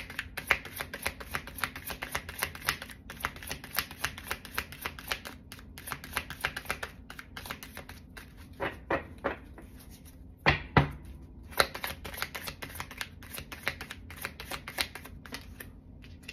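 A tarot deck being shuffled by hand: a fast, continuous patter of card clicks and flicks, with two louder knocks about ten seconds in.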